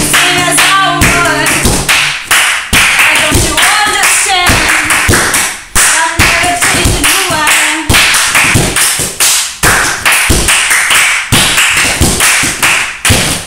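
Hands clapping and slapping a leather couch in a quick, steady beat, used as a drum. Voices sing a tune over the beat in the first half; near the end the beat goes on alone.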